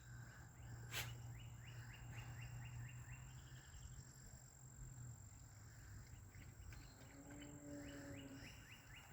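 Faint rural ambience: a rhythmic run of short high chirps, about four a second, that fades after a few seconds and returns near the end. A cow moos once, faint and distant, near the end.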